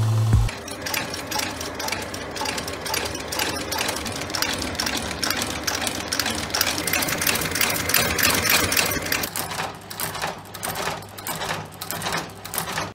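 Shoe-repair sole-stitching machine running, its needle punching through a leather sole with a rapid, steady clatter of stitches. It follows a low motor hum from the groover that cuts off about half a second in.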